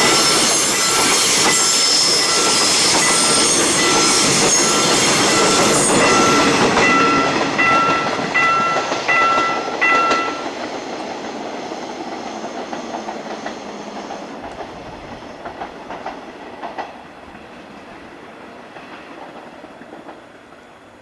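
A train running over a railroad crossing, its wheels clattering on the rails, loud for the first six seconds and then fading away. The crossing's warning bell rings in short, evenly repeated dings, about one and a half a second, and stops about ten seconds in.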